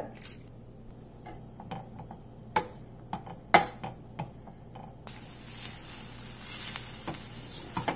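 A few sharp clicks of a spatula against a stainless steel frying pan as butter goes in with sautéed onions. About five seconds in, a steady sizzle starts as the butter melts and the onions are stirred.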